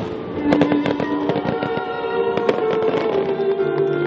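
Aerial fireworks going off in quick succession, sharp bangs and crackling, over the show's musical soundtrack with long held notes.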